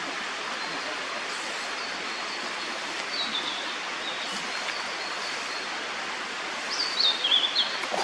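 Blue-and-white flycatcher singing: phrases of high, clear whistled notes over a steady hiss. A louder phrase of notes falls in pitch near the end.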